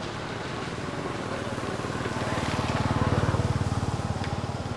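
A motor vehicle passing by, its engine growing louder to a peak about three seconds in and then fading.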